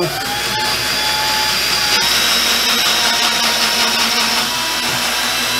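Craftsman cordless drill running steadily with a whine that spins up at the start, as a small pilot bit bores through drywall and into a wood stud behind it.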